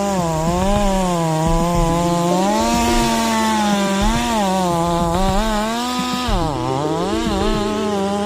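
Chainsaw engine running under load while cutting wood. Its pitch keeps sagging and recovering as the chain bites, with the deepest dip about six seconds in.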